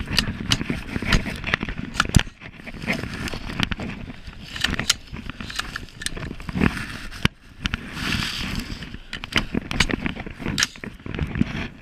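Irregular knocks and rattles of an AR-style rifle and its gear jostling as the shooter moves, with footsteps crunching in dry leaf litter.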